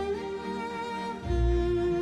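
Background music of bowed strings: violin and cello holding sustained notes, with a deep bass note entering about a second and a half in.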